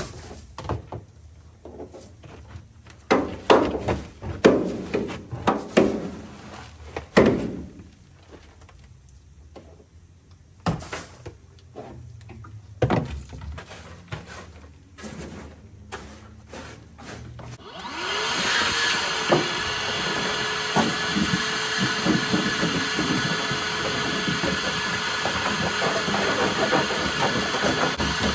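Debris being handled and pulled out: scattered knocks, clicks and rustles. About 18 seconds in, a motor spins up and runs steadily with a rushing air sound, like a shop vacuum or blower.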